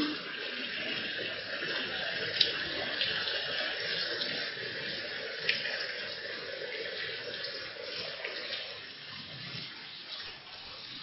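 Heavy rain pouring down in a steady hiss, with two sharp ticks standing out about two and a half and five and a half seconds in.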